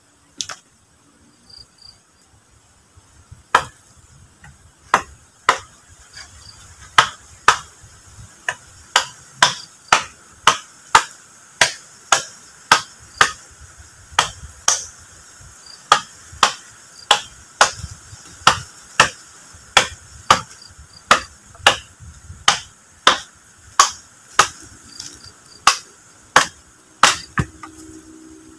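Machete chopping into a wooden pole: a run of sharp woody strikes, a few at first and then about two a second. Insects chirr steadily underneath.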